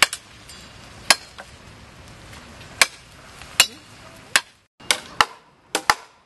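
Branches of a fallen tree being chopped by hand: a blade strikes the wood in about nine sharp, irregular blows, some coming in quick pairs near the end.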